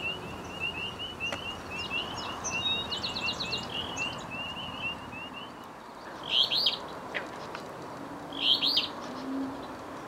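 Songbirds singing: a fast, even run of short high notes for about the first half, a brief trill about three seconds in, and two louder chirping phrases in the second half.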